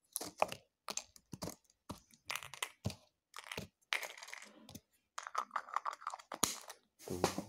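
Clear plastic bag crinkling and small plastic Lego minifigure parts clicking as they are handled, in short irregular rustles and crackles.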